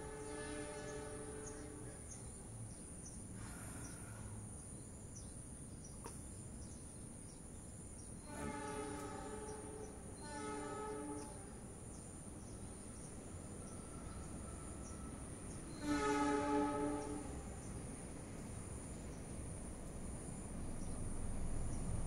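Several long, steady horn blasts about a second each, spaced out over a steady high-pitched whine.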